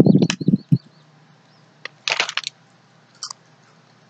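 Pringles Bites being eaten from a foil snack bag. A few loud dull knocks in the first second, then short crackly bursts of crunching and bag crinkling.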